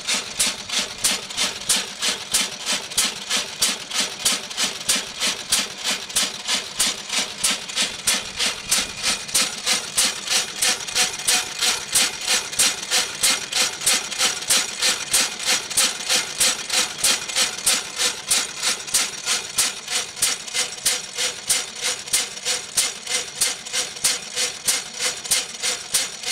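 Horwood Bagshaw OFG 6HP single-cylinder, hopper-cooled, open-crank stationary engine running steadily under its throttle governor, firing in an even, regular beat with sharp clacks on each stroke.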